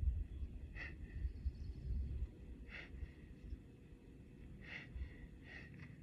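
Wind buffeting the microphone in uneven gusts, with about five short high chirps scattered through it.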